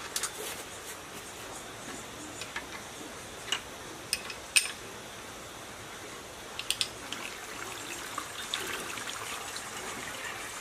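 Spanners clinking on the mounting bolts of a single-cylinder diesel engine: a few sharp metallic clicks, the loudest about four and a half seconds in. From about eight seconds in, water pours steadily from a pan into the engine's water tank.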